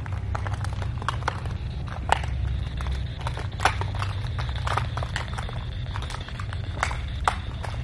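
Footsteps and scattered sharp knocks, irregular and uneven, over a steady low hum.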